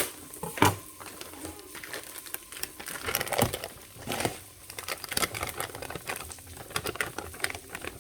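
Kitchen handling sounds as the cooked vegetables are fetched: two sharp knocks near the start, then irregular clicking, scraping and rustling.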